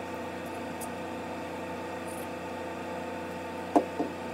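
A steady hum with several fixed tones, broken near the end by two sharp knocks in quick succession.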